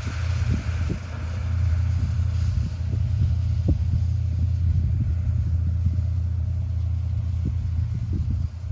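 Farm tractor's diesel engine running steadily, a constant low drone, with scattered short low thumps.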